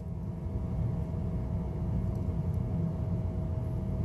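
A low, steady background rumble with a faint steady hum above it.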